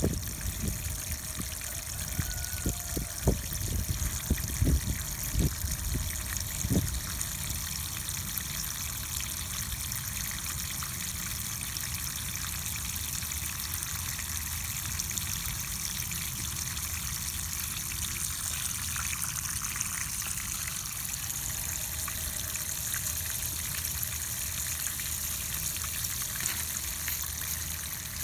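Water spurting and dribbling from the leaking hose fitting at the bottom of a plastic vacuum chicken waterer and splashing onto grass in a steady stream: the fitting has not yet sealed. A few low bumps come in the first several seconds.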